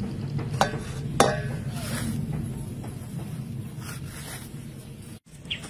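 Background music with a steady low accompaniment, broken by two sharp taps about half a second and a second in.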